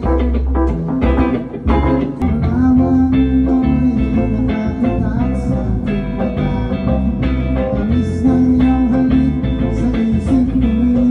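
Live band playing: a guitar melody line over bass and drums.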